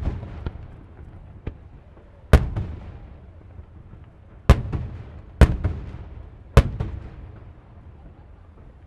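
Fireworks shells bursting overhead: four loud bangs at irregular spacing, at about two and a half, four and a half, five and a half and six and a half seconds in, with a couple of fainter bangs earlier, each followed by a rolling rumble and crackle that dies away near the end.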